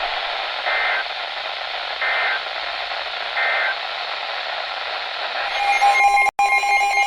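NOAA Weather Radio receiver hiss with three short warbling data bursts about a second apart: the SAME end-of-message code that closes an emergency alert. About six seconds in, a steady two-pitch alert tone begins, with a brief dropout.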